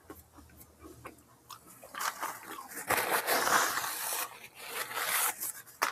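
Paper napkin rustling and rubbing as it wipes the mouth close to a clip-on mic: a loud scratchy rustle starting about two seconds in and lasting about three seconds, after a few faint clicks.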